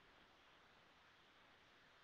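Near silence: faint steady room tone and microphone hiss.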